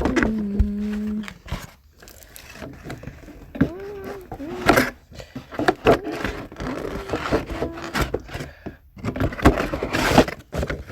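Cardboard and plastic toy packaging being handled, with scraping, clicks and knocks. Short wordless voice-like tones come in among them, a held one at the start and wavering ones in the middle.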